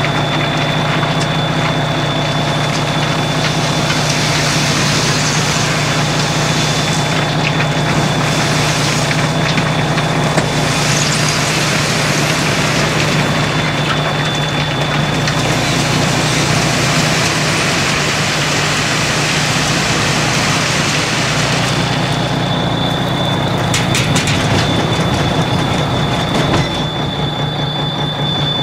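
Farm truck's engine running under load as the truck slips in soft paddock ground, with the steady high-pitched whine of the diff lock, an annoying sound. A few sharp clicks a little past the middle.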